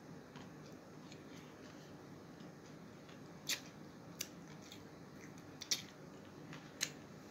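Close-miked eating sounds: four short, sharp crisp clicks over faint room hiss, spread through the second half.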